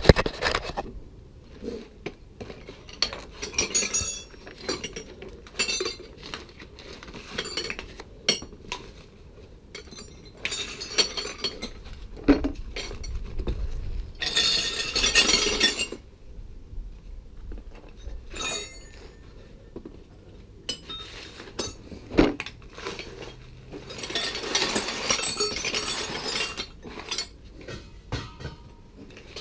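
Metal hand tools clinking and clattering, with scattered sharp clicks and two longer spells of rattling, about halfway through and again near the end. A loud knock comes at the very start.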